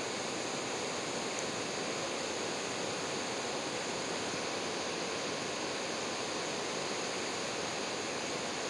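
Meltwater from melting snow rushing and running off: a steady, unbroken rush of water.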